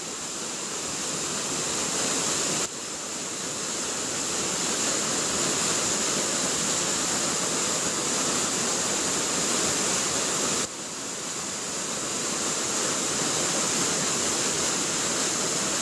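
Waterfall pouring over rock: a steady, even rush of water. Its level drops suddenly twice, then builds back up.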